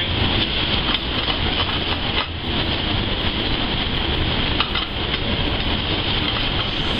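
Ground pork filling sizzling in a hot sauté pan on a gas range, over a steady low rush of burners and kitchen ventilation, with a few light scrapes of a spatula against the pan.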